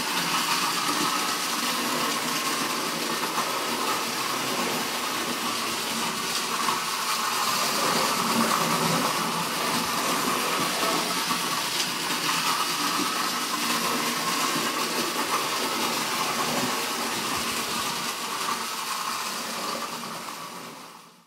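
Battery-powered Distler H0 toy trains running on their track: the steady whir of small electric motors and wheels on the rails, fading out near the end.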